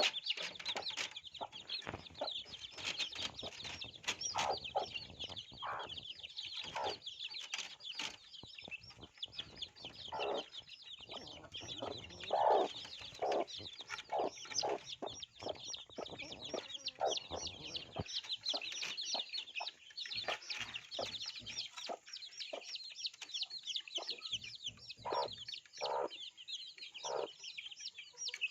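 Many baby chicks peeping continuously in a dense, overlapping chorus of rapid high-pitched calls, with scattered lower clucks among them.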